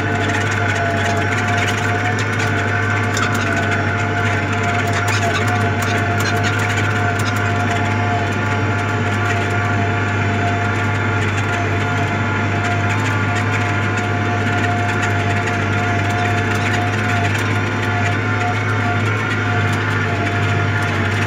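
Tractor engine running steadily under load, heard from inside the cab, while pulling a disc implement through dry soil.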